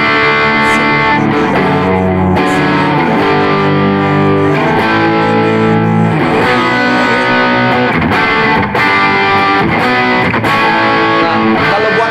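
Electric guitar through an overdrive patch on a Valeton multi-effects unit, playing a run of sustained, changing chords: the driven rhythm sound used for backing chords.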